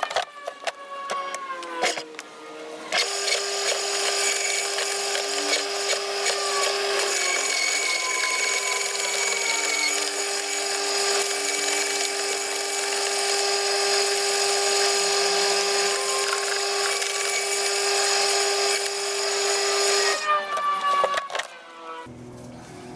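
Electric roller wood chipper (Okay 2000 W Walzenhäcksler) shredding branches: a steady motor whine with loud crunching of wood from about three seconds in, dropping away near the end as the feed finishes and the machine stops. The cutter is set narrower, and it chips the material more finely.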